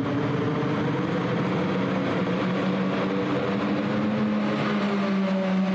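Light limited super stock pulling tractor's turbocharged diesel engine running hard at high revs. Its pitch climbs slightly over the first few seconds, then holds steady.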